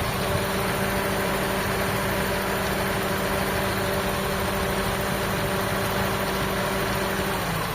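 Toyota 4A-FE inline-four idling steadily with the electric radiator cooling fan running over it as a steady hum and whoosh. Near the end the fan switches off on its own, showing its automatic temperature control is working again rather than the fan being wired to run constantly.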